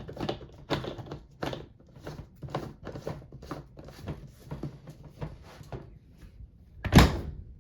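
A run of light knocks and clicks, about two a second, then one loud thud near the end.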